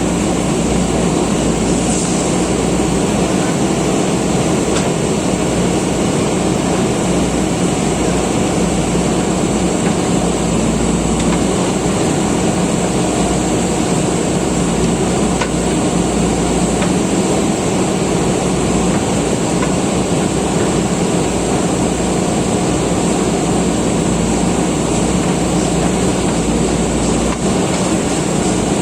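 Diesel engine of a JCB backhoe loader running steadily with a constant low hum.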